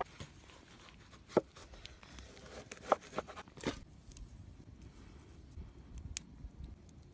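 Scattered sharp clicks and crackly rustling, as of something being handled, torn or crinkled, loudest about a second and a half, three and nearly four seconds in, then sparser, over a low steady rumble.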